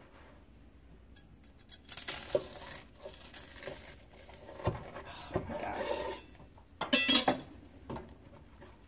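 Chef's knife cutting through a butter-toasted Texas toast patty melt: crisp crunching of the toasted crust, starting about two seconds in and going on through the middle, then a couple of sharp knocks near the end.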